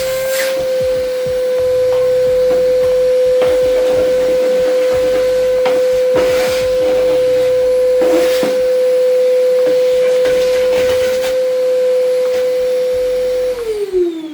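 A small motor running at a steady pitch with some scraping contact, then winding down in pitch as it is switched off near the end.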